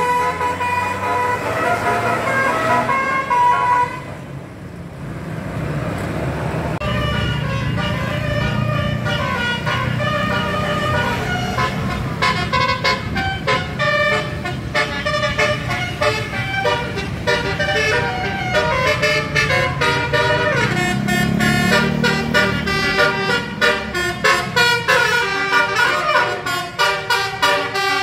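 Basuri "telolet" musical horn on a vehicle playing a tune of quickly changing notes over the engine running underneath. The horn breaks off briefly about four seconds in, then plays on, ending in rapid staccato notes.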